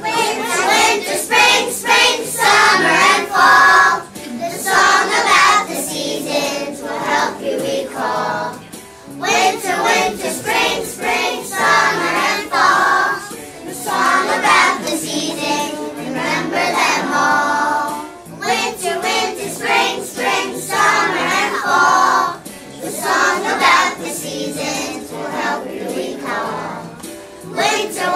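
A class of kindergarten children singing a song together in unison, in phrases with short breaks between them.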